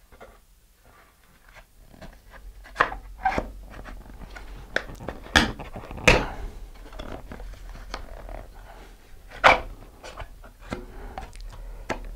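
Fiberglass fin being handled and pushed into the slot of a fiberglass rocket body tube: irregular knocks and clicks of fin against tube, with gloved-hand handling noise in between.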